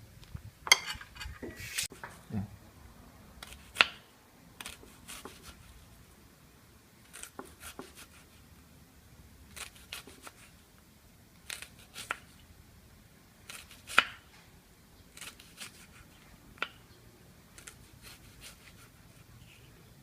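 Irregular light clicks and knocks, one or two every second or so, with a few sharper ones about a second in, at four seconds and near fourteen seconds.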